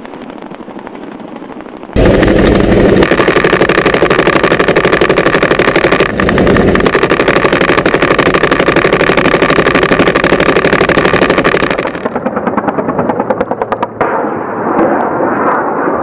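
AH-1 Cobra attack helicopter's chin-turret 20 mm gatling cannon firing one long continuous burst, a very rapid unbroken stream of shots over the helicopter's rotor and engine noise. The gun opens up about two seconds in and stops about twelve seconds in, after which the sound drops to quieter, duller helicopter and firing noise.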